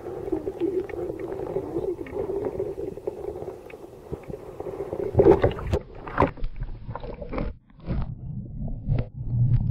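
Muffled underwater sound of water around a submerged camera: a steady hum with small clicks, then about five seconds in a loud splash as the camera breaks the surface, followed by irregular water sloshing and low thumps.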